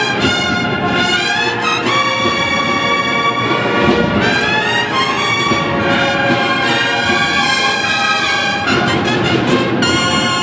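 Spanish cornet-and-drum band (banda de cornetas y tambores) playing a processional march: massed cornets hold sustained chords that change every second or two over a steady drum accompaniment.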